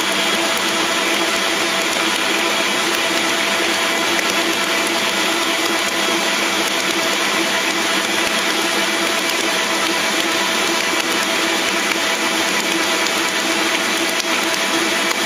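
Stand mixer running steadily, its motor giving a constant whine as it kneads a very wet, 100% hydration pizza dough in the steel bowl.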